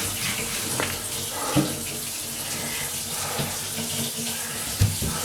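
Wet cloth being wiped over a kitchen floor, a steady watery swishing, with a dull knock near the end.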